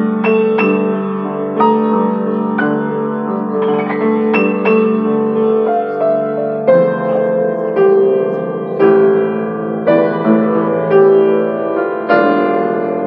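Grand piano played by hand: held chords in the low and middle range with single melody notes struck over them, the harmony changing about seven seconds in.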